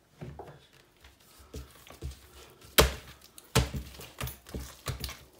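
Hands working a lump of msemen dough on a tray, pinching it into portions: a run of irregular soft thumps and knocks of dough and hand against the tray, the loudest nearly three seconds in.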